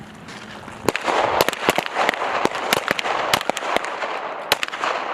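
Several handguns firing on a range line: rapid, irregular, overlapping shots, several a second, starting about a second in.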